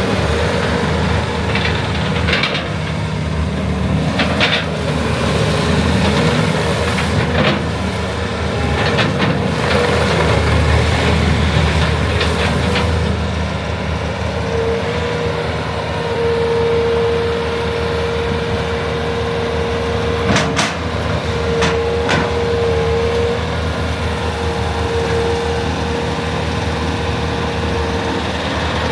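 Bobcat T550 skid steer's turbocharged four-cylinder diesel running steadily. A higher steady whine comes and goes through the second half, and a few sharp clanks sound over the engine.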